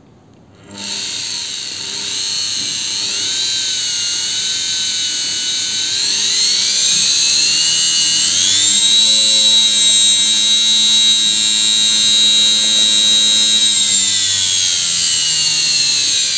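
Washing-machine-type electric motor with a drill chuck on its shaft, run through a speed controller. It starts about a second in with a whine that climbs as the speed is turned up, climbs again from about six to nine seconds in, holds steady, then begins to fall in the last couple of seconds as the speed is turned down.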